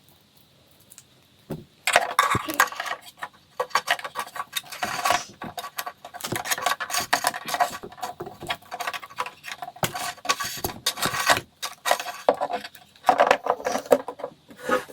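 Small hard assembly parts clinking and rattling as they are handled and fitted, in dense, irregular clatter starting about two seconds in, with a brief pause near the end.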